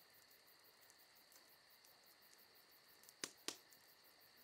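Near silence: faint room tone with a steady thin high whine, broken about three seconds in by two small clicks a quarter second apart.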